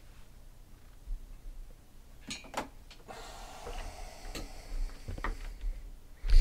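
Scattered light clicks of someone typing on a keyboard, with two sharper clicks about two and a half seconds in and a faint hiss from about three seconds to five and a half.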